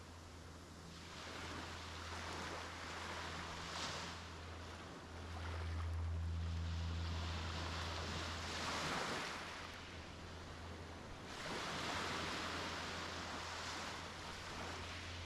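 Sea waves breaking and washing up a beach, swelling and falling back every few seconds. A low steady hum runs underneath, loudest around the middle.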